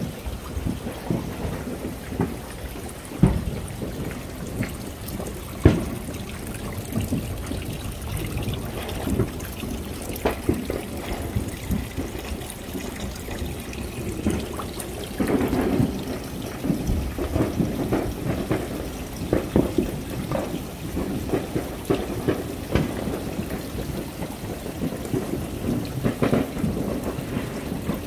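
Fireworks going off: a dense, continuous crackle of pops and bangs, with a few sharper, louder bangs about three and six seconds in.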